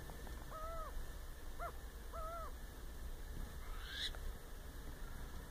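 An owl giving a few faint, short calls, bunched in the first half, each a brief arched note.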